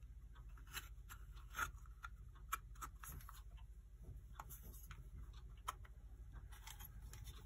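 Scattered light clicks, scrapes and a few sharper knocks as the housing of a clock's electric movement is worked down over the mechanism and its taped power cord in a tight fit.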